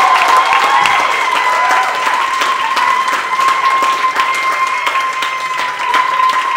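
Audience applauding, a dense clatter of many hands clapping. A single steady high-pitched tone holds all the way through it.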